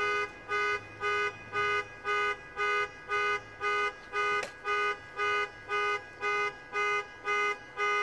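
Electronic warning chime beeping evenly about twice a second, each beep a steady multi-tone ding, with a faint click about halfway through.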